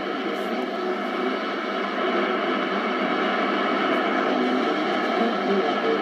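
Icom IC-R71E communications receiver playing a noisy 1476 kHz AM medium-wave broadcast: a steady hiss of static and noise, with the station's programme faint beneath it. This is typical of weak, long-distance reception.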